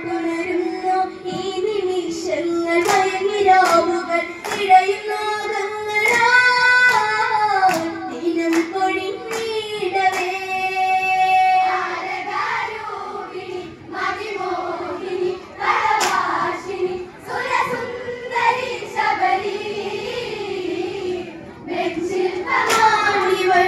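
Women singing a Malayalam Onam kali folk song through a microphone and PA loudspeakers, with the dancers' sharp hand claps now and then keeping time.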